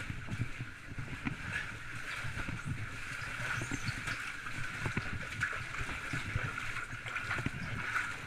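Water sloshing and gurgling around a person moving through a water-filled pipe, with frequent irregular knocks and bumps.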